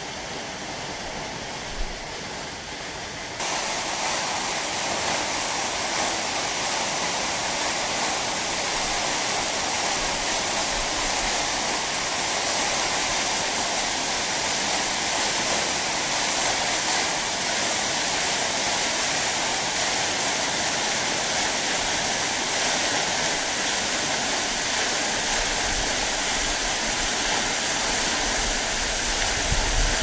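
Waterfall: a steady rush of falling water that suddenly becomes louder and fuller about three seconds in, with a single short click just before.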